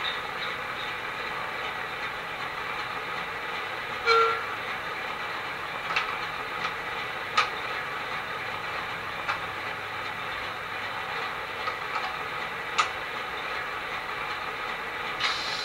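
Bachmann Class 08 shunter model's DCC sound decoder (Legomanbiffo sound file) playing the shunter's diesel engine idling steadily through the model's small speaker. A few sharp clanks come through it, the loudest about four seconds in, and a hiss starts near the end.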